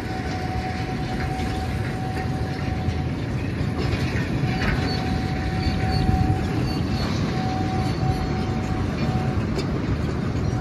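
A narrow-gauge sugarcane train of empty cane bins rolling past behind its diesel locomotive: a steady rumble of wheels on rail with a few sharp clanks, and a single steady high whine that stops and starts.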